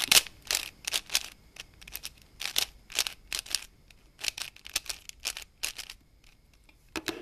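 Plastic 3x3 Rubik's cube being twisted by hand: a quick, irregular run of sharp clicks as its layers snap into place, a short pause, then two more clicks near the end.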